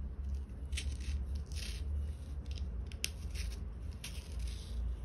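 Small scissors snipping a paper sticky note, cutting around a drawn frame in a series of short, irregular crisp snips over a steady low hum.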